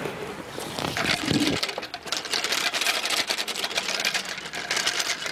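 A fast, dense, irregular clicking rattle that sets in about two seconds in, from yarn being drawn off wooden spools while warping on the fence.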